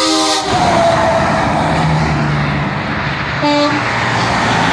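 A semi truck's multi-note air horn sounding a chord that cuts off about half a second in, then the loud rush of heavy trucks passing close by, with a second, short single-note horn blast about three and a half seconds in.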